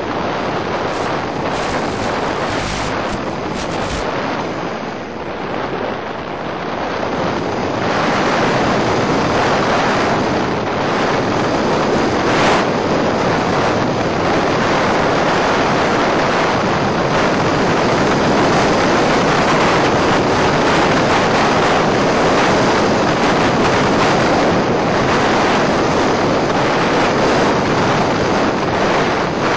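Steady rushing noise from the onboard audio of an EasyStar FPV plane gliding with its motor off, with a few brief crackles in the first few seconds; it grows louder about eight seconds in.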